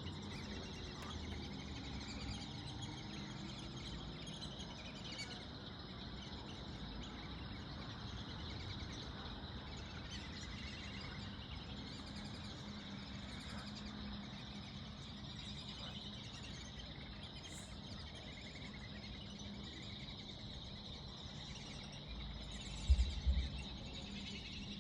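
Repeated short, high-pitched chirping calls at night over a steady high drone, which the recordist takes for birds. A brief low thump near the end.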